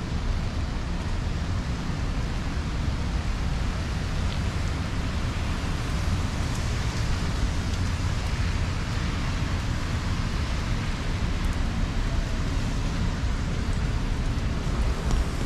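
Steady hiss of rain falling, with a low rumble underneath.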